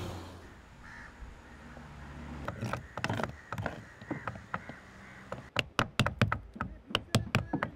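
Crows cawing a few times against a quiet background. About two-thirds of the way through, a quick, irregular run of sharp knocks or taps begins, several a second, and keeps going.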